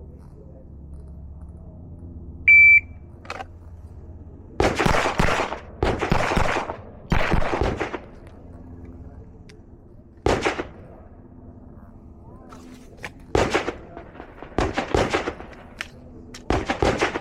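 A shot timer beeps once, then about two seconds later Glock 17 9mm pistol shots ring out in quick strings, several groups of shots over the next dozen seconds.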